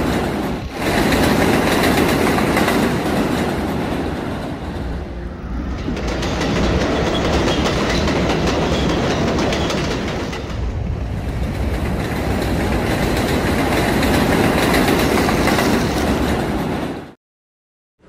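Subway train running over the rails with a steady clatter of wheels on rail joints, dipping briefly a few times and cutting off suddenly into silence about a second before the end.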